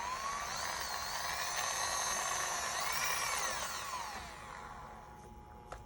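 Small electric model-train motor running while submerged in a dish of all-purpose cleaner, whining. Its pitch rises, wavers up and down, then falls away about four seconds in as it winds down.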